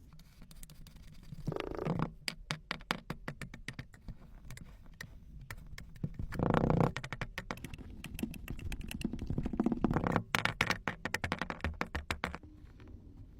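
Sand being worked by hand for a satisfying-sound video: a run of fine crackles and crunches, with louder swells about a second and a half in, around the middle, and again about three quarters through, thinning out near the end.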